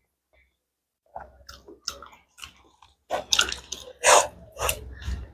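Close-miked chewing: a person eating with wet mouth smacks and clicks, starting about a second in, with one louder smack near the end.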